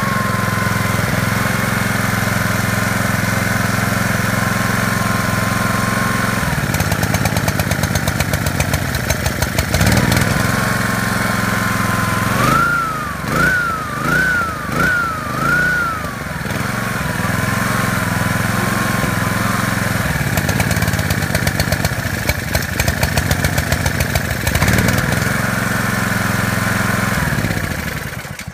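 Honda GCV160 single-cylinder four-stroke engine on a pressure washer running loudly. About halfway through its speed surges up and down four times in quick succession as the throttle linkage is moved, then it settles, and it stops near the end. This engine runs in the start position but locks up and dies when moved to run, a fault a new carburettor has not cured.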